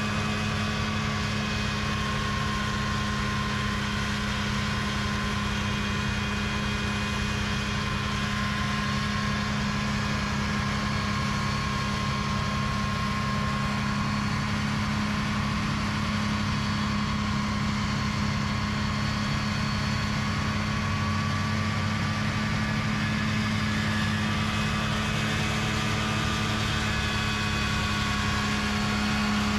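A home-built backhoe-mounted snowblower, driven by a snowmobile engine, running steadily at constant speed, together with the backhoe's own engine. It makes a steady low drone with a thin higher whine above it.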